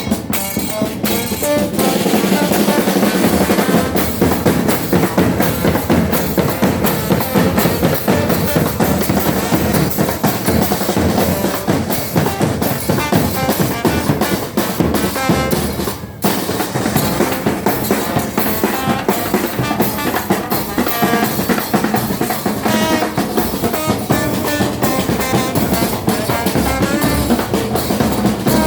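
Chirimía chocoana band playing: drums, with bass drum prominent, keep a dense beat under pitched wind instruments. The music dips briefly about sixteen seconds in.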